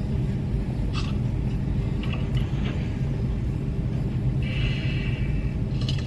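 Steady low rumble of a minivan's idling engine, heard from inside the cabin, with a few faint rustles of a paper greeting card being handled.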